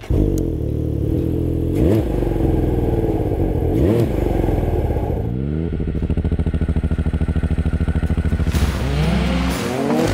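Ski-Doo Mach Z snowmobile's turbocharged 900 ACE Turbo R four-stroke engine revving. The pitch sweeps up and back down twice, about two and four seconds in. A steady fast pulsing run follows, then the pitch climbs again near the end.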